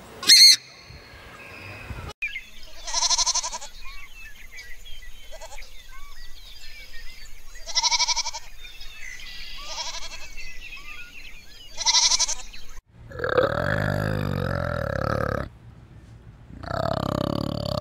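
Bleating: four short, wavering calls a few seconds apart over faint chirping. Near the end comes a deeper, longer call, twice.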